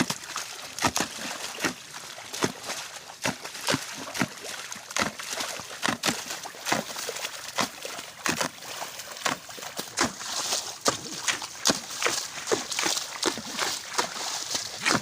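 Digging tool chopping into waterlogged field soil, a rapid run of wet chops and sloshes of mud, rather more than one stroke a second.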